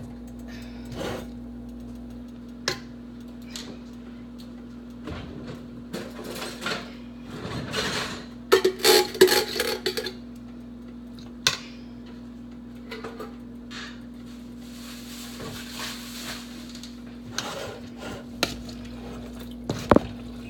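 Scattered clinks, knocks and clatter as cans and a speckled enamel stockpot are handled on a kitchen counter, with a denser stretch of pouring and scraping noise about halfway through. A steady low hum runs underneath.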